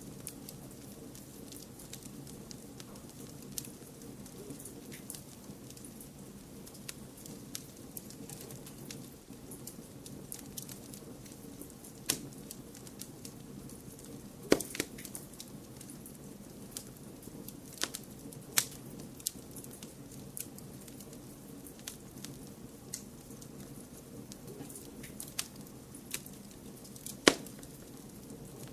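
Wood fire crackling in a fireplace: frequent small snaps and a handful of louder pops over a steady low background noise.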